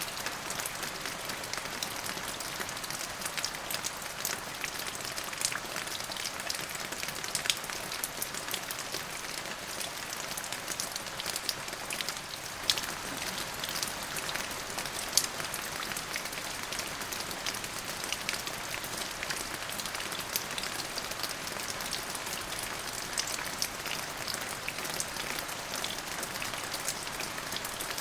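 Steady rain falling, with many separate drops ticking sharply against a hard surface over a constant hiss.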